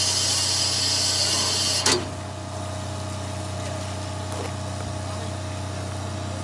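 Steam locomotive hissing loudly with escaping steam, which cuts off abruptly with a click about two seconds in. A steady low hum from the standing locomotive continues underneath.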